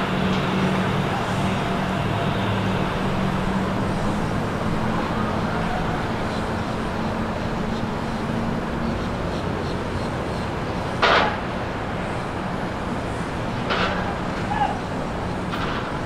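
Low, steady drone of a Lazzara motor yacht's engines as it cruises past, over a wash of water and city traffic noise. Three short, sharp noises stand out in the second half, the loudest about eleven seconds in.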